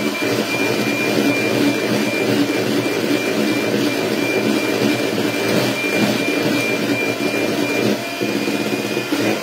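Handheld electric mixer running steadily, its beaters whipping egg whites into meringue, with a thin steady high whine over the motor noise.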